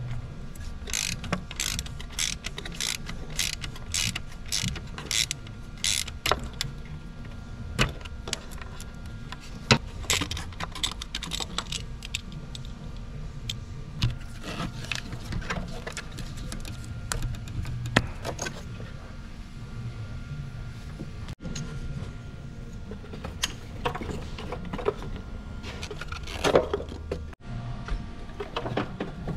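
Hand tools and engine-bay parts being worked: a fairly regular run of sharp clicks in the first few seconds as a socket wrench turns the timing belt tensioner bolt, then scattered clicks and rattles of parts and connectors being handled. A low steady hum runs underneath.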